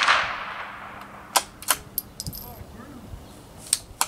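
The fading report and echo of a .22 rifle shot from a CZ 452 bolt-action rifle, followed by a run of short, sharp metallic clicks: the rifle's bolt being worked between shots.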